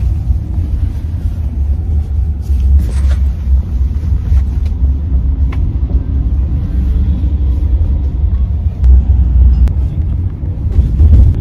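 Inside a moving car's cabin from the back seat: a steady, loud low road rumble, with a few faint ticks.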